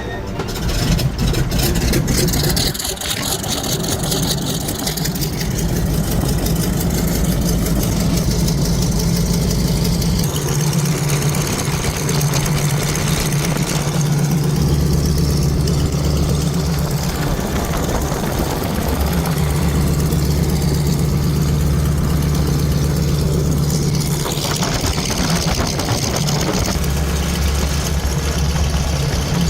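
BT-13 Valiant's nine-cylinder Pratt & Whitney R-985 radial engine catching about a second in with a rough burst of firing, then running steadily at low revs, its speed shifting a few times.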